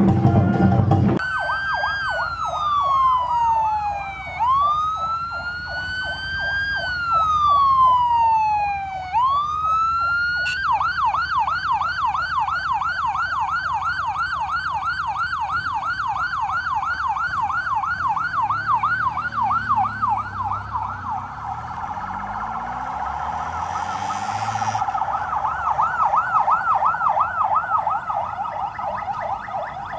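Motorcade escort sirens. After a second of drumming, a slow wail falls and rises over a few seconds while a fast yelp warbles at about four cycles a second. From about ten seconds in, the fast yelp continues alone.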